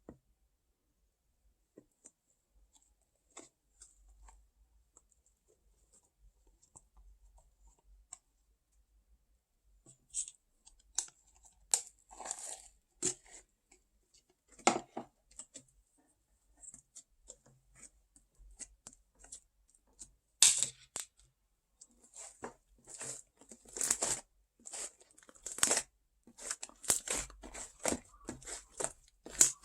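Fluffy slime being pressed and pulled by hand, giving off sticky crackles and snaps. Faint, sparse ticks for the first several seconds, then louder crackling that becomes dense in the last third.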